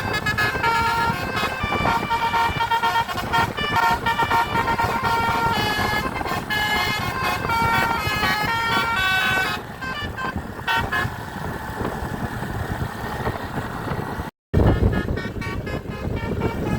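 Multi-tone 'basuri' telolet bus horn playing a fast tune of shifting notes for about ten seconds, then fading, over a steady vehicle rumble. The sound cuts out completely for a moment near the end.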